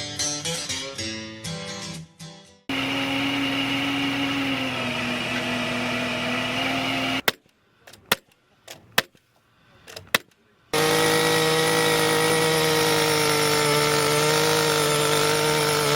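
Acoustic guitar music that breaks off into a steady machine drone, a few sharp knocks in a quieter stretch, then a second, louder steady drone of heavy equipment running at a pole-replacement job.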